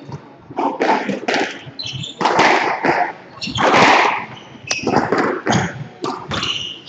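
Squash rally: the ball struck by rackets and hitting the court walls in sharp knocks, among the players' quick footsteps and shoe scuffs on the wooden floor.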